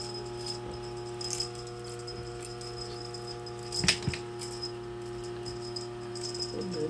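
Light metallic jingling, like a small bell, with a sharp knock about four seconds in, over a steady hum.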